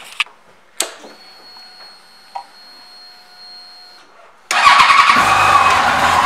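Yamaha FJR1300A motorcycle switched on and started: a key click about a second in, then a faint steady whine for about three seconds. The inline-four engine catches suddenly about four and a half seconds in and settles into a loud, steady idle.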